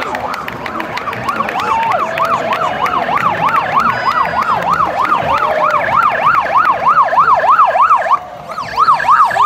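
Emergency vehicle siren on a fast yelp, its pitch sweeping up and down about three times a second; it breaks off briefly near the end and then starts again.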